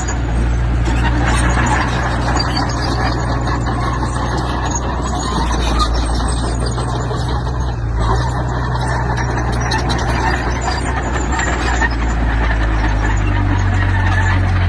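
Heavy diesel earthmoving machinery running under load, its steady engine note shifting about eight seconds in and again near the end, with a constant clatter of small knocks over it.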